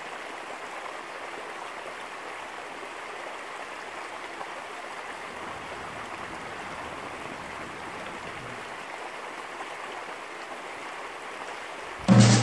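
Small stream running over a rock ledge into a pool, a steady even rushing of water. Music starts abruptly right at the end.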